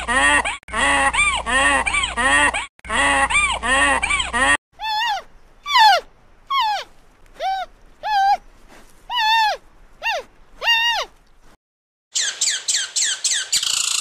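Somali wild ass braying in three bouts of rapid rising-and-falling calls. Then about ten separate falling bleats from a giant panda follow. Near the end comes a quick run of short high calls.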